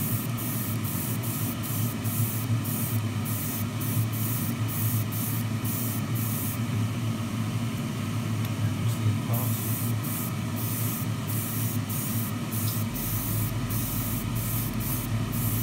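Airbrush spraying in short bursts of hiss, about two a second, with a pause of about a second and a half midway, as thin mist coats of metallic lacquer go onto a small model part. A steady low hum runs beneath.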